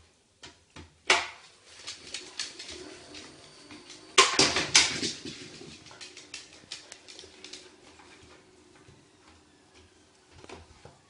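iFetch automatic ball launcher firing a small ball across a hardwood floor, with the ball bouncing and a dog's claws scrabbling on the wood: a sharp knock about a second in, a burst of louder knocks and clatter about four seconds in, then lighter clicking.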